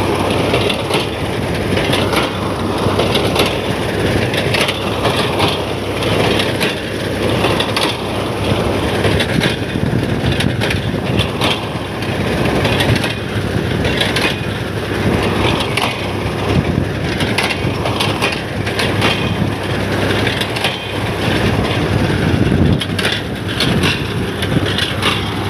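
Swaraj 735 FE tractor's diesel engine running steadily while its front-mounted reaper binder cuts wheat, with many sharp crackles and snaps of dry stalks being cut and crushed.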